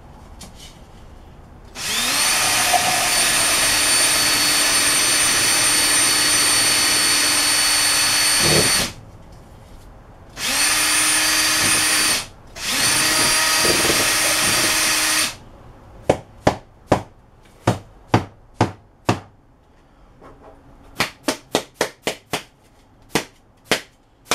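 Electric drill boring deeper into the mace's ball: one long run of about seven seconds that winds down, then two short bursts. A string of about a dozen sharp knocks follows in two quick clusters.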